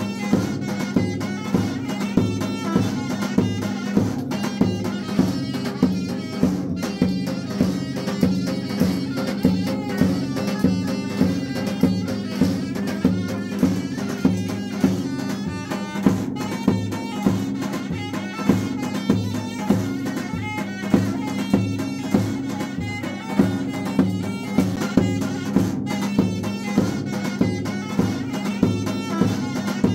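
Background music with a steady drum beat over a sustained low drone.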